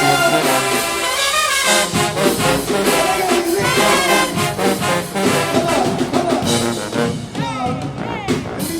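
Marching band playing, a full brass section over drums.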